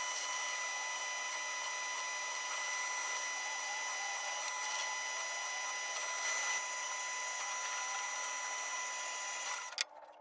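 Drill press running with a steady whine while drilling holes in aluminium angle, switching off suddenly near the end.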